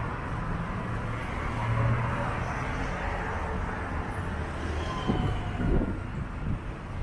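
Street traffic: a steady low rumble of passing motor vehicles, with a few short knocks about five to six seconds in.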